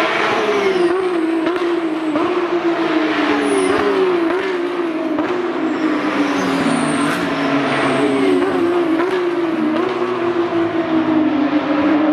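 Porsche 911 GT3 Cup racing cars passing at speed. The engine note climbs and drops back again and again as the gears change.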